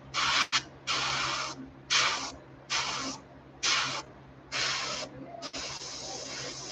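Gravity-feed airbrush spraying paint onto a fishing lure in short hissing bursts, about one a second, seven in all, the last one held longer, over a faint steady low hum.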